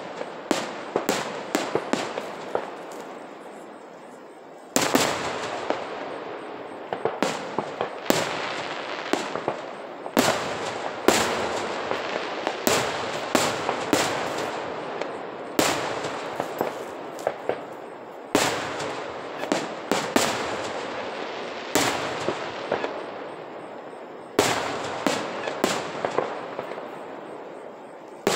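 Aerial fireworks shells bursting: a run of sharp booms every one to three seconds, each followed by smaller pops and crackling that fades before the next boom.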